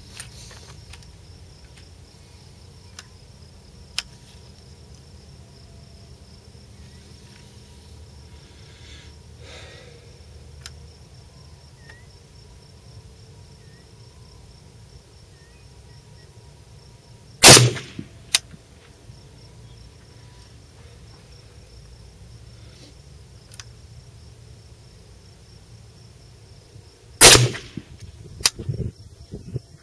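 Two shots from an AKM rifle in 7.62x39mm, about ten seconds apart, slow aimed shots of a zeroing group fired from the prone position. Each shot is followed within a second by a fainter sharp crack.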